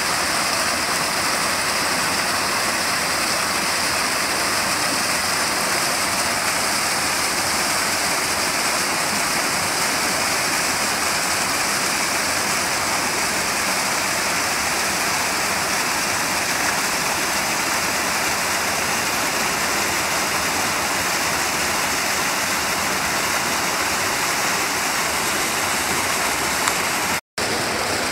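Small waterfall cascading over rocks into a rocky stream: a steady, hissing rush of falling and splashing water. The sound cuts out for an instant near the end.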